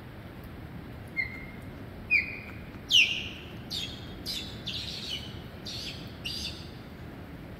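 Osprey calling: three high whistled notes about a second apart, the third the loudest, then a quicker run of about six shorter, harsher calls.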